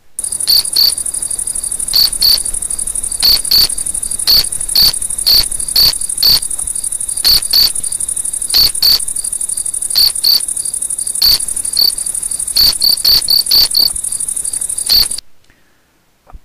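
Cricket chirping: a steady high trill with sharper, uneven chirps about twice a second. It starts at once and cuts off suddenly near the end.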